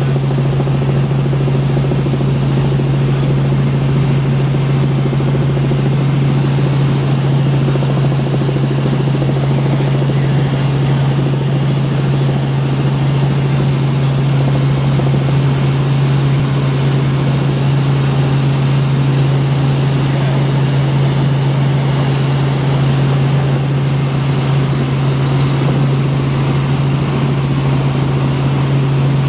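Helicopter in flight heard from inside the cabin: a loud, steady drone of rotor and engine with a strong low hum.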